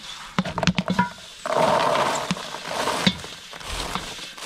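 Wooden paddle knocking and scraping inside a tipped stainless steel popcorn kettle while popped popcorn is pushed out. About one and a half seconds in, a louder rushing patter of popcorn spilling into a plastic tote lasts over a second, followed by a sharp knock.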